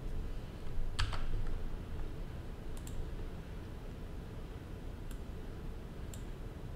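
A few sharp clicks at a computer: the loudest about a second in, a quick double click near three seconds, then single clicks near five and six seconds, over a low steady hum.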